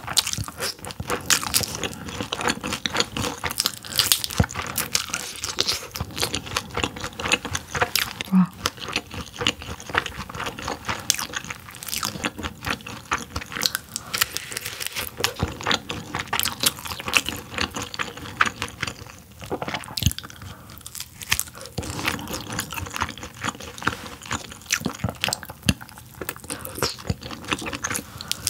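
Close-miked chewing, with wet mouth clicks, lip smacks and crisp crunches, as meat from a grilled yellowtail head is bitten off the bones. The small clicks and snaps come in a dense, uneven run throughout.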